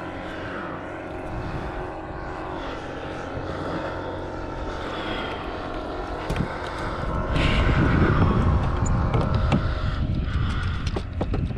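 Steady drone of a distant engine holding several tones. From about seven seconds in, a low rumble grows louder and a few sharp knocks come through.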